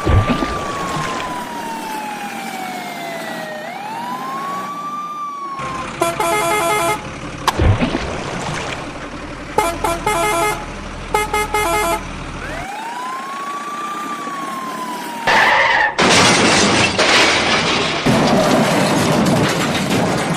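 A wailing siren rises quickly and falls slowly, three times, with several short horn honks between the wails and two sharp knocks. About three quarters of the way through, a loud dense rush of noise takes over.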